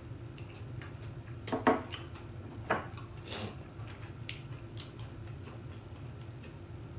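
Eating utensils clicking and tapping against dishes and food containers in scattered light strikes. The loudest comes about a second and a half in and another about a second later.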